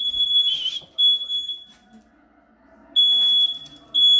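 Smoke alarm sounding: a single high-pitched tone in beeps under a second long, about a second apart, two beeps, a pause of over a second, then two more.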